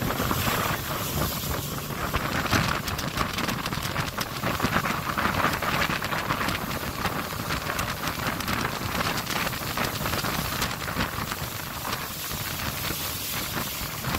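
Open river speedboat under way at speed: wind buffeting the microphone over water rushing past the hull and the boat's motor running steadily.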